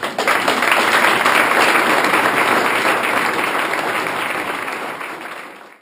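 Audience applauding, slowly dying down and then cutting off suddenly near the end.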